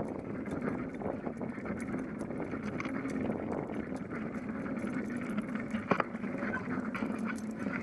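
Bicycle rolling along a concrete sidewalk, a steady rolling noise with small rattles and clicks from the bike and its dog-leash attachment, and one sharper clank about six seconds in.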